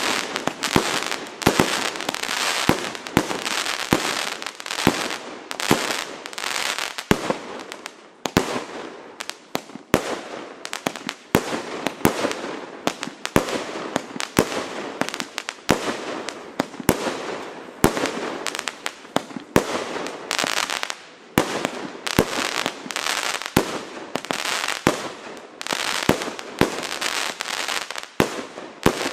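A 200-shot, 30 mm (1.2-inch) compound fireworks cake, the Klasek Signature Range C2003SIG, firing continuously: a rapid stream of launch and burst bangs, about two or three a second, with a steady hiss and crackle between them.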